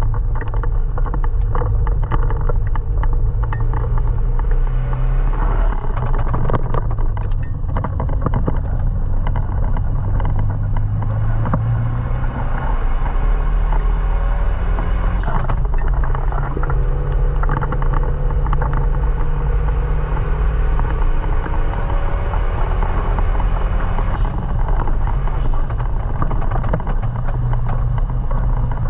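Renault Mégane Sport 225's 2.0-litre turbo four-cylinder engine running steadily under load, its note changing abruptly about halfway through, over the hiss of tyres on a wet track.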